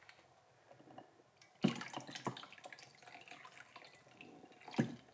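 Water poured from a bottle over a large ice ball in a bowl of water, trickling and dripping, with a few sharp clicks: the loudest about a second and a half in, another soon after and one near the end.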